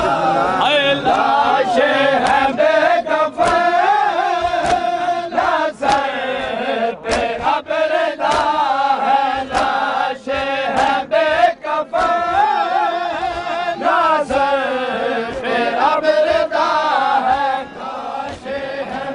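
Men's voices chanting a noha (Shia mourning lament) in unison, with sharp slaps of hands striking bare chests in matam keeping time throughout.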